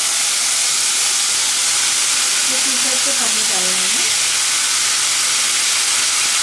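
Wet, freshly washed basmati rice sizzling loudly in hot ghee and cumin seeds in a kadhai while it is stirred: a steady, even hiss.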